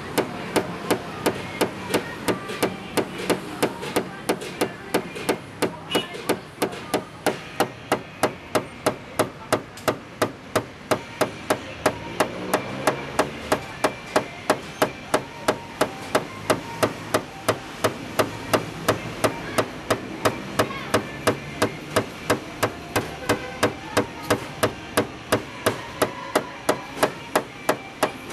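Rapid, even tapping on metal, about three taps a second, typical of a tap-down tool being struck with a light hammer to level a car body panel in paintless dent repair.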